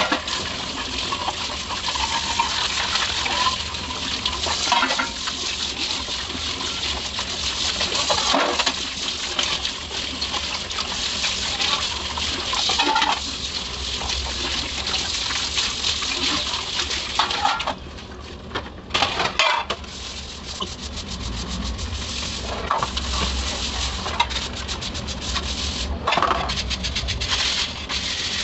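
Tap water running onto stainless steel plates and bowls as they are hand-rinsed in a steel sink, with frequent metallic clinks of the steel dishes knocking together. The running water briefly quietens about two-thirds of the way through.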